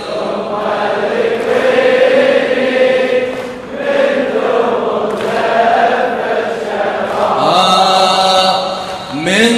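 Many men's voices chanting a Shia Muharram mourning lament (latmiya) together, with a wavering, drawn-out melody.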